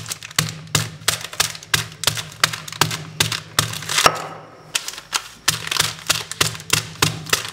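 A wooden rod pounding sealed packets of Oreo biscuits on a table, crushing the biscuits inside: a quick run of knocks with crackling wrapper, about three a second. The loudest knock comes about four seconds in, followed by a brief pause.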